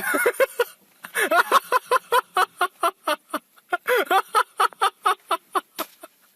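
Rapid run of short, high-pitched vocal sounds, about three or four a second, each rising and falling in pitch.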